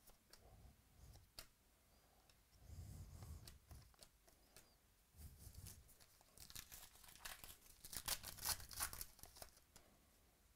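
Foil wrapper of a baseball card pack crinkling and tearing open, loudest in the second half, after a few light clicks of trading cards being handled.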